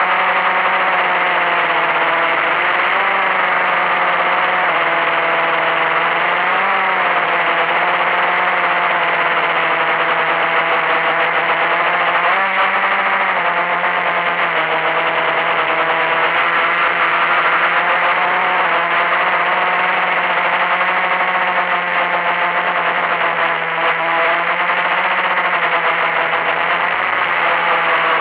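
Blade 350QX quadcopter's brushless motors and propellers whirring in flight, heard from its own onboard camera: a loud, steady buzzing hum whose pitch drifts up and down slightly as the throttle changes.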